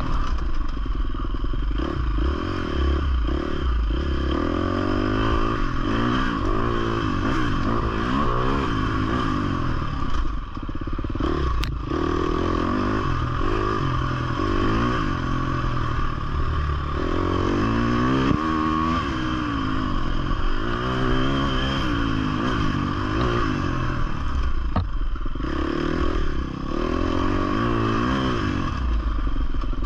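Husqvarna 350 FC four-stroke single-cylinder dirt bike engine being ridden hard, its pitch rising and falling over and over as the throttle is worked and it shifts through the gears.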